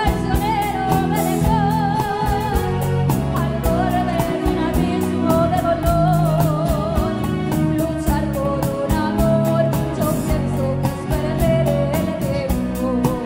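A woman singing a song live, her voice wavering with vibrato, backed by a band with acoustic guitar and a steady drum beat.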